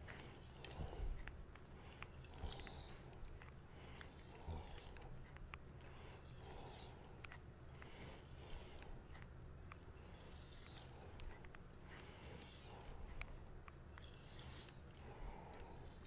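Faint, repeated strokes of a Damascus-clad R2/SG2 powder-steel kitchen knife on a wet synthetic whetstone, each pass a soft scraping hiss, coming every second or two.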